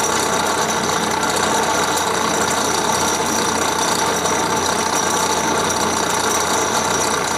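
Craftsman 101 metal lathe running steadily at low speed, a constant mechanical whir of motor and drive with the tool not yet cutting.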